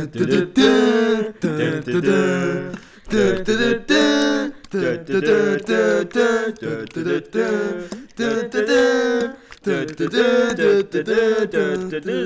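Unaccompanied singing voice, short sung syllables with gliding pitch following one another throughout.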